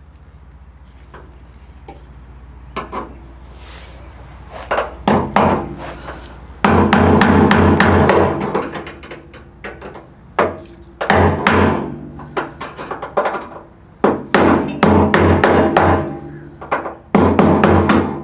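A few sharp metal taps as a screwdriver is worked against a fuel-tank sending unit's lock ring to turn it tight. Loud background music with a steady beat comes in about seven seconds in and dominates the rest.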